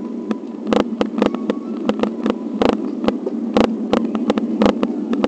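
Bicycle riding over a wet, cracked asphalt road: steady rolling noise with irregular sharp knocks and rattles, a few a second, as the bike jolts over the rough surface.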